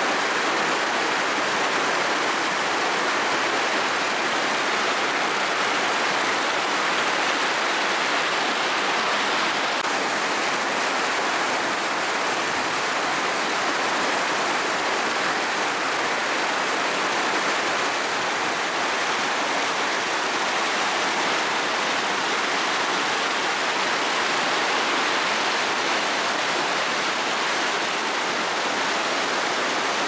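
River rapids: fast water rushing and churning over rocks, a steady loud rush.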